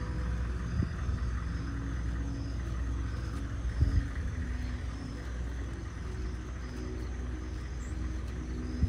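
Steady low street rumble with a few faint knocks.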